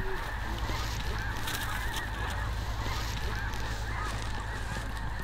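A large flock of snow geese calling, a steady din of many overlapping calls.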